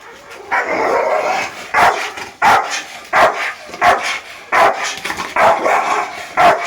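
A protection-trained dog barking on its handler's "watch" command: a longer opening bark, then a steady run of sharp barks about every 0.7 seconds.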